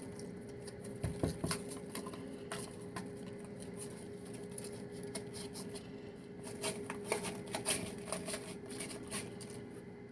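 Cardboard box of baking soda being shaken and tapped over a bathroom sink, the powder pattering into the basin with scattered light taps and rustles, over a steady faint hum.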